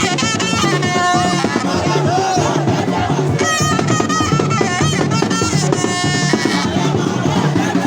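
Loud music with a steady drum and percussion beat.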